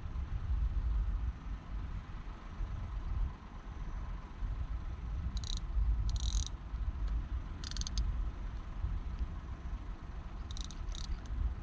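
Wind rumbling over the microphone. Five short, high-pitched buzzes cut through, in two groups: three from about the middle and two near the end.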